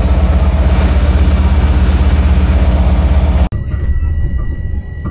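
JFK AirTrain car running: a loud, steady low rumble with a thin high whine. About three and a half seconds in it cuts off abruptly, and a quieter rumble with a steady high tone follows.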